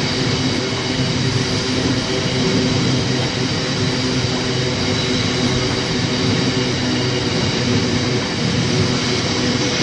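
Freight train of biomass wagons bound for Drax rolling steadily past on the rails, a continuous rumble with a low steady hum.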